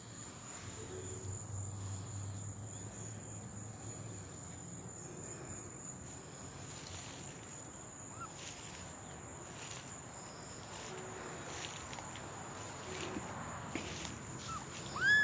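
Steady high-pitched drone of insects with faint rustling. Near the end a kitten gives a short high mew, the loudest sound here.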